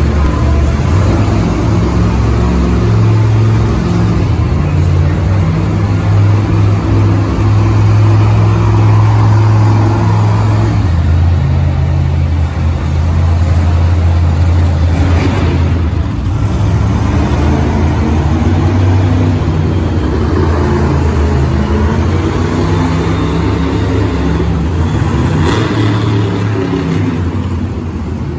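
Monster truck engines, supercharged V8s, running loudly and steadily in the arena. The pitch shifts down a step about 11 seconds in, then rises and falls repeatedly as the trucks rev and ease off.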